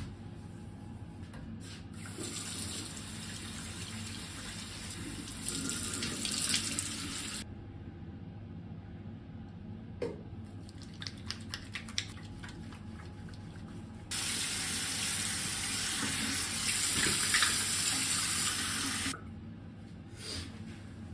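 Bathroom sink tap running twice, each time for about five seconds, switched on and off abruptly. Between the two runs come a few short clicks and wet hand sounds of face washing, and near the end soft taps of a towel patting the face dry.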